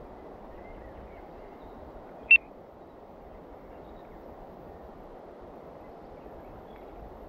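Steady hiss of rain falling on the water. About two seconds in there is a single short, sharp high beep.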